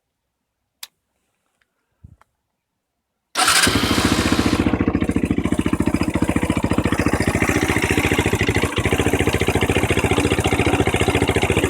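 Honda NX 125's single-cylinder four-stroke engine starting a few seconds in, then idling warm with a fast, even beat. The owner hears a slight scraping in it, as if the engine were not well lubricated, and is unsure whether it is normal.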